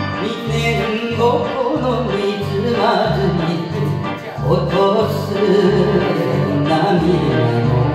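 A man singing a Japanese enka song into a karaoke microphone over the karaoke backing track, which has a steady two-beat bass line.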